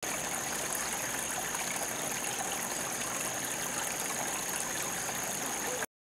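Steady rushing of running water with a thin, high, steady whine on top; it starts and cuts off abruptly.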